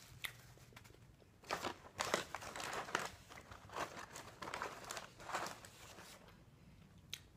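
Paper being crumpled and rustled by hand, in irregular crackly bursts from about a second and a half in until about six seconds in.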